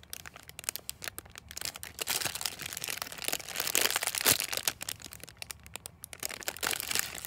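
Clear plastic packaging bag crinkling and crackling as hands squeeze the jumbo strawberry foam squishy sealed inside it, in irregular bursts with short pauses.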